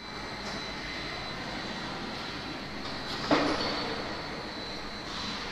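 Automated assembly-line conveyors running: a steady mechanical rolling noise with a thin high whine, and one sharp clack a little over three seconds in.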